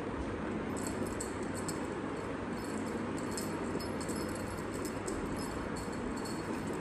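Cat wand toy jingling in quick, repeated clusters of high tinkles as it is shaken and batted, over a steady low hum.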